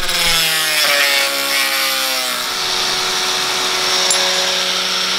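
Angle grinder cutting slotted steel angle: the motor whine drops in pitch over the first couple of seconds as the disc bites, then holds steady under a dense hiss of grinding metal.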